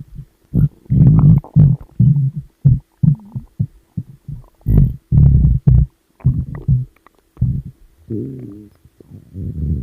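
Stomach growling: a run of low gurgles and rumbles in short, irregular bursts, then a longer wavering growl near the end.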